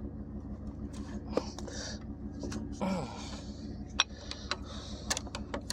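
Old Dodge pickup's engine idling steadily, with scattered sharp metallic clinks and taps and a person's breathing over it.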